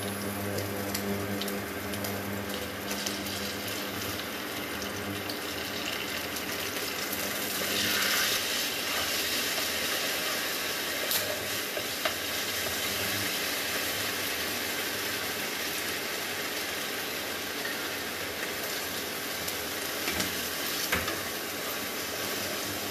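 Food frying in a kadai: a steady sizzle that swells louder about eight seconds in, with a wooden spatula stirring and scraping in the pan.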